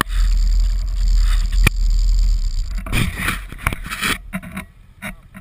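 Off-road vehicle driving on a creek-crossing trail: a loud, steady low rumble, then rough scraping and rushing noise from about three to four seconds in that fades away near the end.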